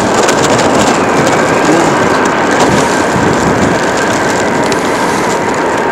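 Steady, loud rushing roar of blizzard wind and blowing snow, with a few faint clicks.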